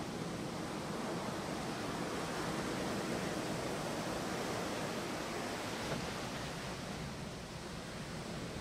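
Heavy ocean surf breaking and washing up a sandy beach: a continuous rush of water that swells through the middle, then eases slightly near the end.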